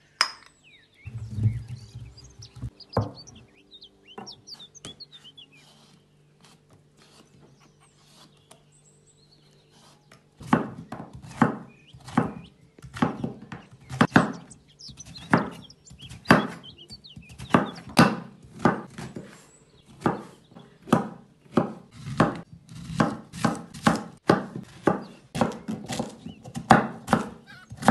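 Kitchen knife slicing and dicing a peeled zucchini on a plastic cutting board: regular chops, about two a second, start about ten seconds in and come faster near the end. Before them come a few scattered clinks and knocks.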